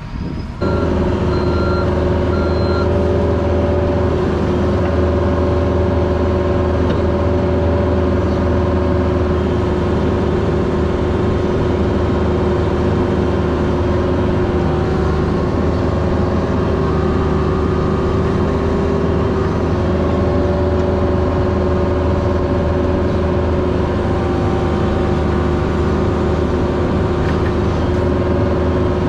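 Caterpillar 304 mini excavator's diesel engine running steadily while digging, its pitch shifting slightly now and then as the hydraulics take load. A few short beeps sound about a second in.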